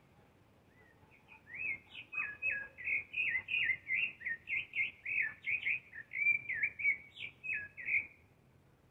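A thrush (zorzal) singing: a fast, unbroken run of short clear notes that slide up and down, about three a second. It starts about a second in and stops shortly before the end.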